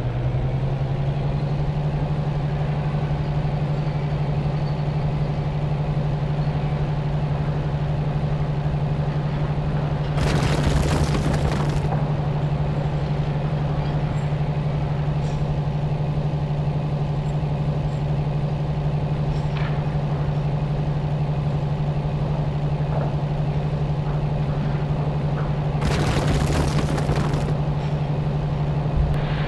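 Steady, unchanging heavy diesel-engine drone, an engine sound laid over the toy play, with two hisses of about a second and a half like an air-brake release, one about ten seconds in and one near the end.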